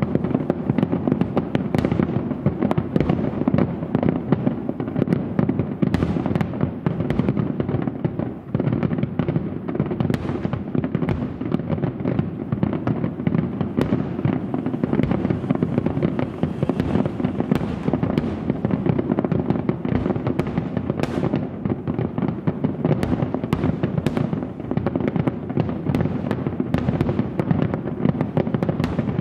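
A massed barrage of aerial fireworks shells bursting without pause: a dense, continuous rumble with many sharp cracks crowding over it.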